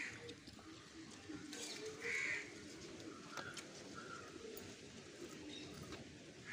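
Crow cawing twice, one short harsh call at the start and another about two seconds in.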